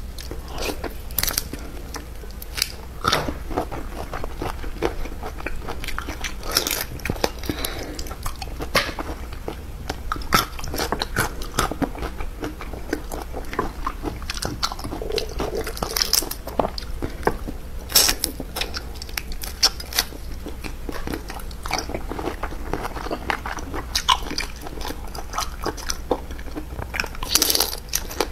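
A person biting into, sucking on and chewing marinated raw shrimp, close to a clip-on microphone: wet crunches, sucks and smacks coming at irregular intervals.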